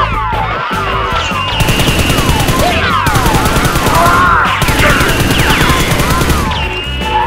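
Background music with rapid gunfire sound effects, dense volleys of shots over a steady beat, mixed with short gliding zap-like tones.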